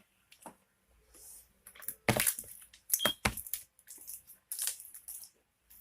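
Sticky homemade slime being squished and stretched by hand, giving irregular clicks, pops and crackles, with a cluster of louder pops about two to three seconds in.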